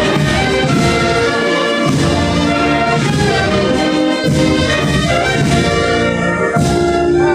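Brass band playing a slow melody in held chords, the phrases breaking off briefly every two seconds or so.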